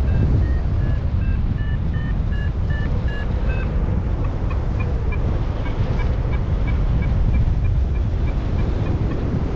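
Airflow buffeting the microphone in flight, with a paragliding variometer (XC Tracer Maxx) beeping over it in short electronic tones. For the first few seconds the beeps jump about in pitch, then settle into a quicker, even run of short higher beeps, about three a second: the vario's climb signal, the glider going up in lift.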